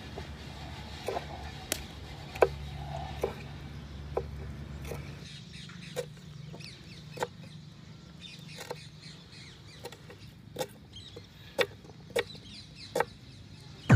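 Kitchen knife chopping green capsicum and then onions on a wooden cutting board: sharp single taps of the blade on the wood, spaced about half a second to a second apart. A low hum runs under the first five seconds and stops.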